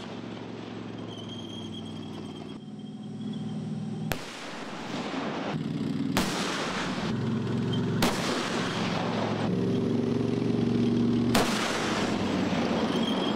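K1A1 tank's 120 mm main gun firing during live-fire gunnery, four sharp reports a few seconds apart. Between them the tank's engine runs with a steady drone as it manoeuvres.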